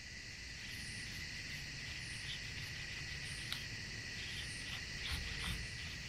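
Outdoor insect chorus: a steady high-pitched trilling with short, higher chirps now and then.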